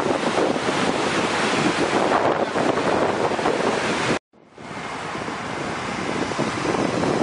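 Rushing water of a swollen, flooded river, a loud steady rush, mixed with wind buffeting the microphone. The sound cuts out completely for a moment a little past halfway, then comes back in.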